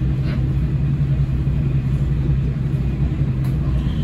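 Cabin sound of a KiHa 40 diesel railcar moving slowly: the diesel engine's steady low rumble and hum.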